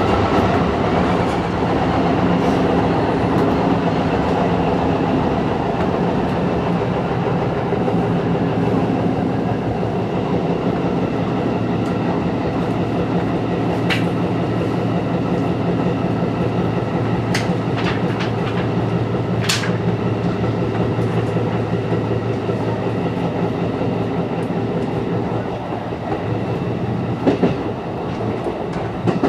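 Seibu 101-series electric train running, heard from the cab: a steady whine of several tones from the traction motors and gears over rumbling wheels, with wheels clicking over rail joints. About 25 seconds in the motor whine drops away and the sound gets quieter, and near the end the wheels clack over points.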